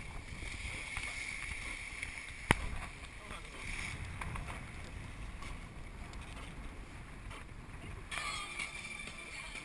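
Small motorboat underway: a steady engine drone with water rushing past the hull and wind on the microphone. A single sharp knock about two and a half seconds in.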